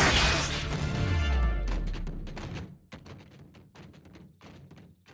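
Cartoon transformation sound effect: a loud mechanical whooshing clatter that dies away over the first two seconds with a falling low tone. It gives way to a run of soft, fairly regular knocks, with music underneath.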